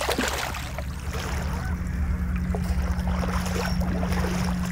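A steady low rumble and hum, with a few faint splashes from a small hooked carp thrashing in shallow water as it fights the net.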